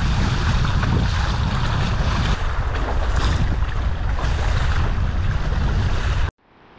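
Heavy wind buffeting the microphone over the rush of water and waves around an inflatable catamaran under sail. The noise cuts off abruptly near the end.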